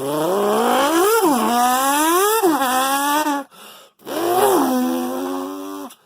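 A man vocally impersonating a Lamborghini engine revving: two rising-and-falling revs, a short break, then a long held note like the engine holding speed.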